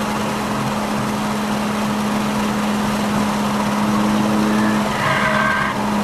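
Car engine holding a steady note during a fast lap of a race track, heard from on board with road and wind noise, and a brief higher squeal about five seconds in, as from the tyres in a corner.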